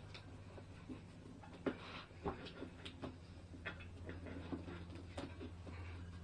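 Scattered light clicks and knocks of hands working an inner tube and tyre onto a motorcycle rim, over a steady low hum.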